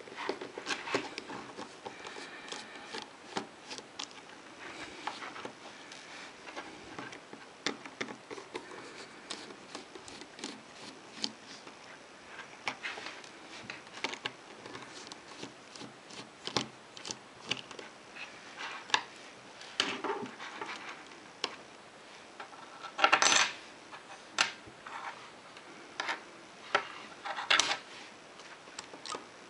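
Small screws being turned out of a Casio Databank DB-150 watch's metal caseback with a precision screwdriver: many light clicks and scrapes of the bit in the screw heads. A few louder metallic clinks of small metal parts come about three-quarters of the way through and again near the end.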